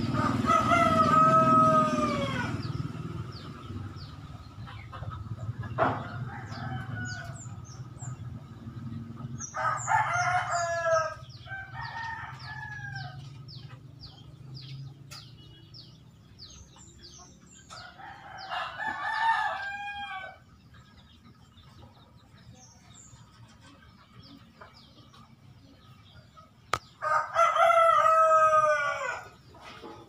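A rooster crowing, about five drawn-out crows spread through, two of them close together near the middle. Faint, brief chirps of Eurasian tree sparrows come in between.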